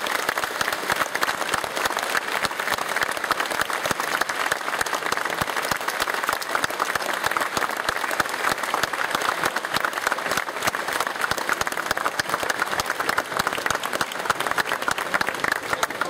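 A large audience applauding steadily, a dense crackle of many hands clapping.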